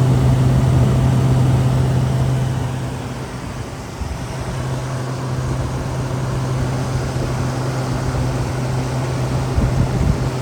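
Frigidaire window air conditioner running, heard at its outdoor back side: a steady rush of air from the fan with a constant low hum, the sound dipping briefly about three seconds in and then coming back up.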